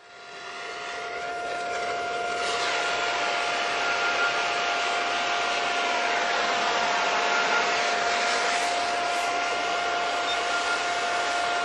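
Electric blower fan running steadily, a constant whine over rushing air, drawing air through a wood gasifier at start-up. It fades in at the start.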